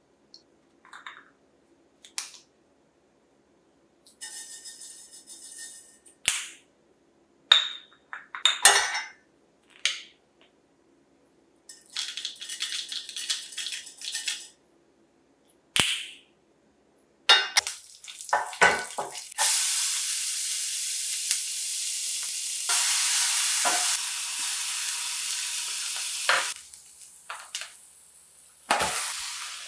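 Tempering in hot oil in a stainless steel pan: clinks and taps as spice jars are handled and seeds are poured in, then a loud, steady sizzle from a little past halfway to near the end as mustard seeds, cumin, dry red peppers and curry leaves fry in the oil.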